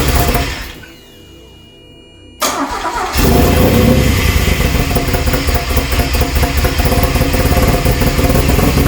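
Replacement engine in a DeLorean DMC-12 being started: a first burst of cranking dies away within the first second, then after a short lull it cranks again, catches about three seconds in and runs on steadily at a fast idle with its exhaust fitted. It is running with the ignition timing slightly out, as the owner suspects.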